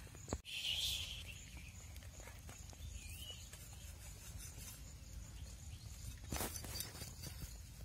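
Quiet outdoor background with a steady high-pitched insect trill and a short burst of noise just after the start. About six seconds in come a few short scraping strokes as a knife begins scraping the scales off a whole fish.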